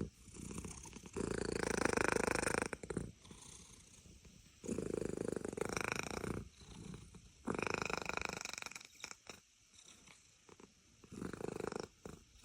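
Domestic cat purring in four long stretches of one to two seconds each, with short pauses between them as it breathes.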